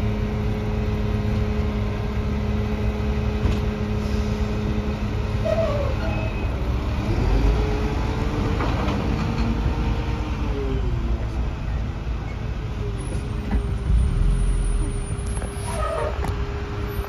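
Diesel engine of a McNeilus front-loader garbage truck idling with a steady drone, revving up for a few seconds midway and then settling back to idle.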